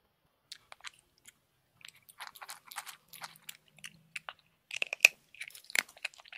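A hamster crunching and nibbling dry treats: an irregular run of small crisp crunches and clicks, loudest near the end.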